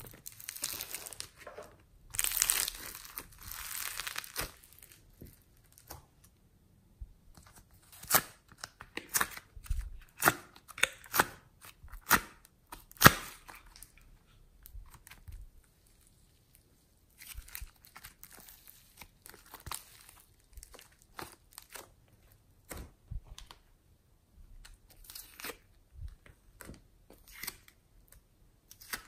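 Foam clay and foam-bead slime being pulled apart and squeezed by hand: a crinkly tearing rustle about two seconds in, then around the middle a run of sharp crackling pops about once a second, then softer scattered crackles.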